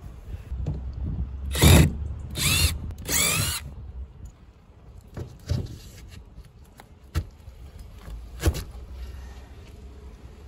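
Cordless drill run in three short bursts, its motor whine rising and falling, backing out the mounting screws of an old frost-free sillcock. A few sharp knocks follow as the sillcock is worked loose from its mounting block.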